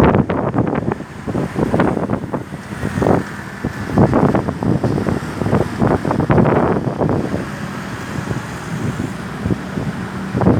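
Wind buffeting the microphone in irregular gusts over the noise of road traffic.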